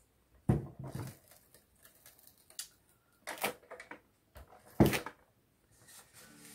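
Scotch ATG 700 adhesive transfer tape gun pressed and run along the edge of a card panel, giving a handful of sharp plastic clicks and knocks, the loudest about five seconds in.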